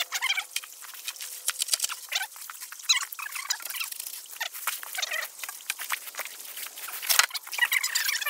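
Dry leaves and brush crackling and rustling with many sharp clicks, as a long wooden board is moved about in the creek bed. One sharp knock about seven seconds in is the loudest. Short chirping calls sound over it several times.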